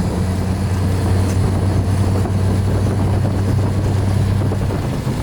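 Motor vehicle running at a steady speed: a constant low engine drone with road and wind noise.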